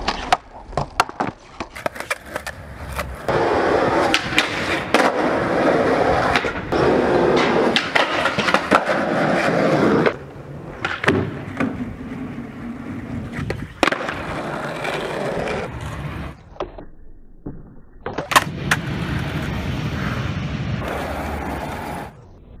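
Skateboard on pavement, over several short clips: wheels rolling, with many sharp clacks as the board is popped and lands.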